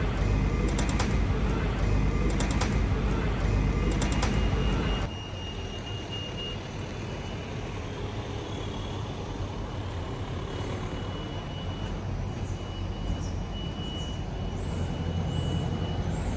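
Subscribe-button animation sound effects: three sharp clicks about one and a half seconds apart over a dense low rumble. About five seconds in they cut off to quieter outdoor street traffic noise with a thin steady high whistle and a few short high chirps.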